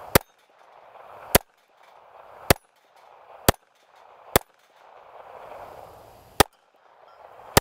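Seven single shots from a gas-delayed blowback semi-automatic pistol, fired at a steady slow pace about a second apart, with a longer pause before the last two.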